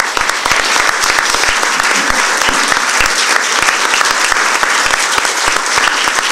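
Audience applauding, starting all at once and going on steadily.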